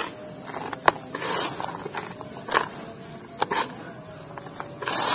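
Damp, gritty red dirt squeezed and crumbled by hand: several short bursts of grainy crunching with sharp clicks of grit between them.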